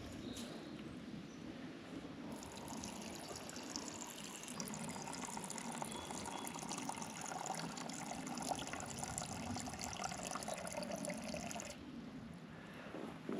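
Water being poured into a collapsible silicone cup, a steady pour lasting several seconds that stops abruptly shortly before the end.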